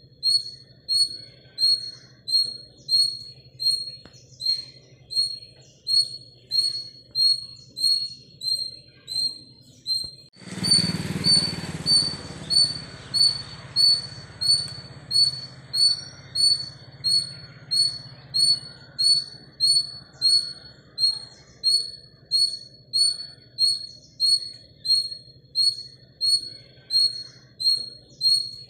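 A small animal's high chirping call, repeated very evenly about three times every two seconds without a break. About ten seconds in, a louder rush with a low rumble starts suddenly and fades away over several seconds.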